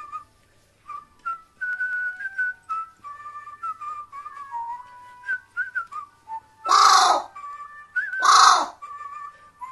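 Carrion crow giving two loud caws about a second and a half apart, over a whistled background tune.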